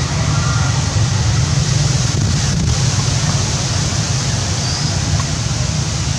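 Wind buffeting the camera microphone: a loud, steady rush with a flickering low rumble.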